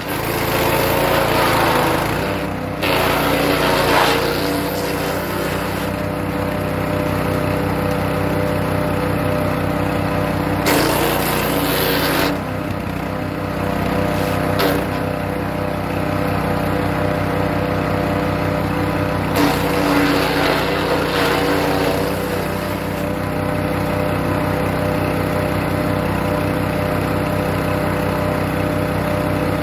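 Hecht 6208 wood chipper's small engine running steadily, with several spells of louder chipping noise as birch branches are fed through: in the first few seconds, twice around a third of the way in, and again about two-thirds in.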